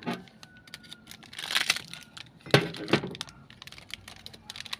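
Small metallic clicks and clinks of engine parts being handled while a new piston is set in place, with a short clatter about one and a half seconds in and two sharper knocks about two and a half and three seconds in.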